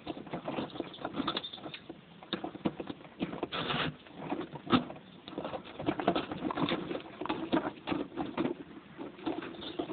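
Hard plastic wheels of a child's pedal tractor and trailer rolling over stone paving slabs, rattling in a run of uneven clicks and knocks, with one sharper knock a little under halfway through.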